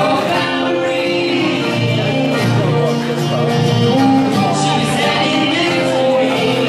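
Live acoustic band playing a song: violin and acoustic guitar with a small plucked string instrument, and voices singing through microphones.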